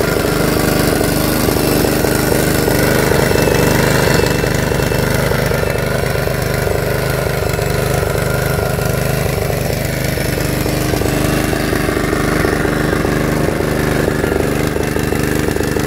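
Small Honda petrol engine running steadily, driving an air blower that pumps aeration air through hoses to fish ponds.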